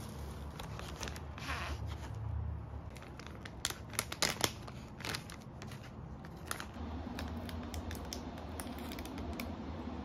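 Tissue paper and a crinkly plastic snack wrapper rustling and crackling as they are handled, with the sharpest crinkles about four seconds in, over a low steady hum.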